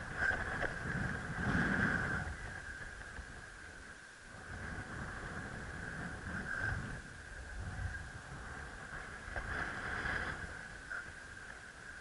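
Gusty wind buffeting the microphone in a low, uneven rumble, with a steady high whistle over it. The gusts swell about two seconds in and again near ten seconds.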